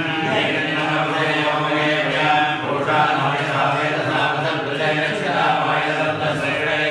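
A group of men chanting Hindu mantras together in a continuous recitation, with no pauses.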